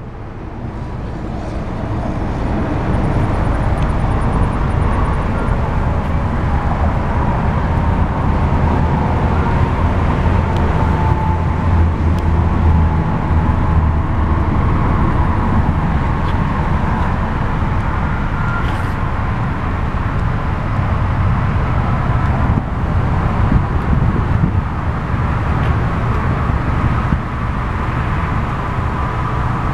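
Steady low rumble of motor-vehicle noise, swelling over the first few seconds and then holding level.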